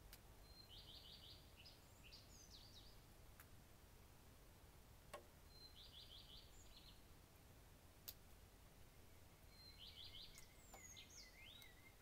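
Faint songbird song: three short phrases about five seconds apart, each a quick run of repeated high notes ending in a twisting flourish. A second bird chirps thinly near the end, and a few sharp clicks stand out.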